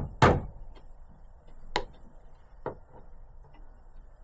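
Hammer taps on a Land Rover Defender bonnet hinge, knocking at the stuck plastic barrel pieces to turn them so the bonnet can lift off. Three sharp knocks: a loud one at the start, then two fainter ones about one and a half and two and a half seconds in.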